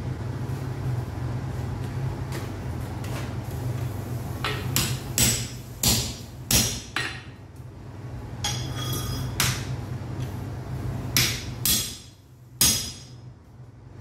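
Blacksmith's hammer striking iron on an anvil: about ten blows in uneven groups starting about four seconds in, a few with a short metallic ring, over a steady low hum that stops near the end.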